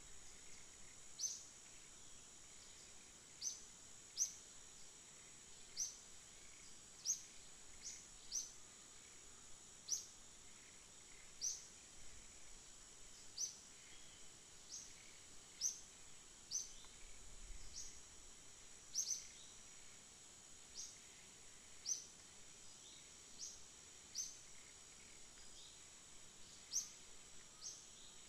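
Forest ambience: a steady high-pitched insect drone, with a short high chirp repeated every second or two.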